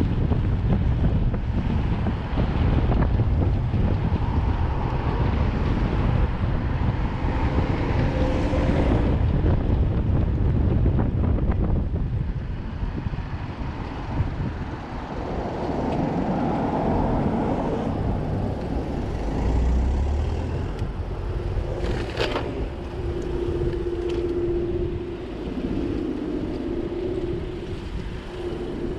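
Wind rushing over a chest-mounted action camera's microphone while cycling along a busy road, with car traffic passing. The wind eases about halfway through, leaving traffic noise, a sharp click a little after twenty seconds in, and a steady hum near the end.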